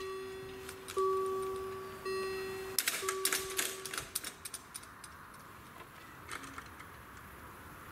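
Level-crossing warning bell ringing about once a second, each stroke fading, while the barriers come down; it stops about four seconds in, once the barriers are lowered. Light clicks sound alongside.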